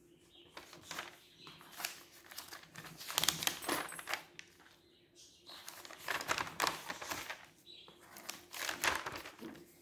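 Paper pages of a notebook being turned and handled, rustling and crinkling in several separate bursts.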